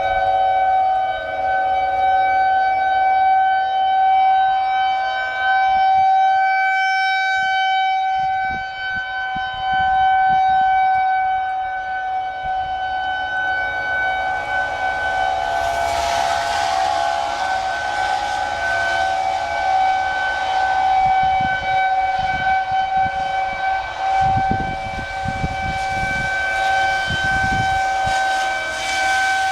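Single-tone outdoor tornado warning siren sounding a tornado warning, held on one steady pitch with no rise and fall, its loudness slowly swelling and fading.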